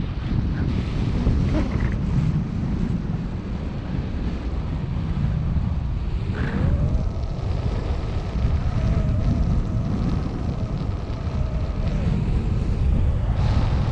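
Wind buffeting the microphone, a steady low rushing noise. A faint wavering hum comes in about halfway through.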